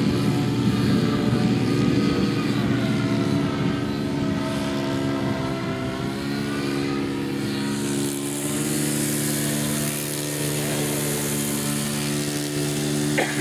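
Engine of a radio-controlled profile 3D aerobatic model plane running in flight, its pitch rising and falling with the throttle. A steady high hiss joins about eight seconds in.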